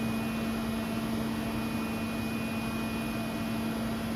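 Steady machine hum with one constant low tone and a faint even hiss, unchanging throughout.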